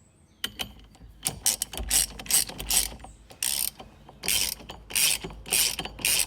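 Ratchet wrench clicking in repeated back-and-forth strokes, about two a second, starting about a second in. It is tightening the 19mm nut that holds the steering hub onto the steering column shaft.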